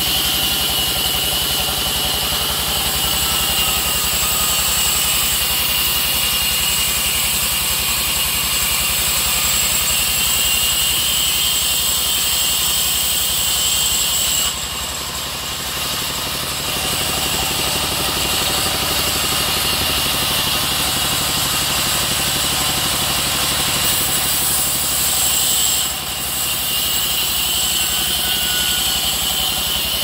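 Band sawmill running and its blade sawing a teak log lengthwise: a steady machine hum with a constant high whine on top. The sound drops a little twice, about halfway through and near the end.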